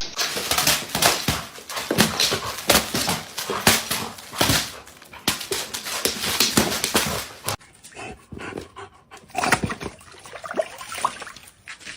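A dog making sounds, with a rapid string of short, sharp noises for most of the first seven seconds; the sound changes abruptly about seven and a half seconds in to quieter, scattered dog noises.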